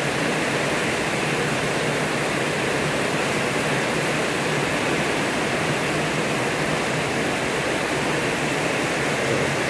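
Heavy rain pouring down steadily: a dense, even hiss of a downpour.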